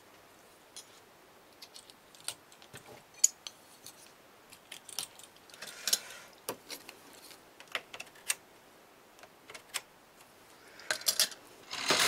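Irregular light clicks and small metallic clinks from handling the parts and tools of a Brother punch-card knitting machine. Just before the end, a loud steady mechanical rattle begins as the carriage is run across the needle bed.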